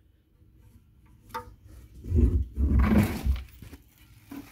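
Handling of a car radiator and its plastic wrapping: a single click, then about a second and a half of dull thumps and plastic rustling as the heavy radiator is moved.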